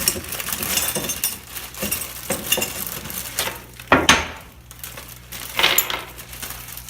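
Small metal screws clinking and rattling as they are handled and sorted, with a louder knock about four seconds in.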